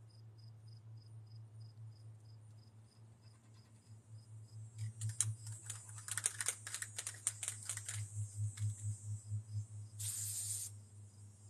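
Aerosol spray-paint can being shaken, its mixing ball rattling rapidly for about three seconds, then a short hiss of spray lasting under a second near the end. Crickets chirp faintly before the shaking starts.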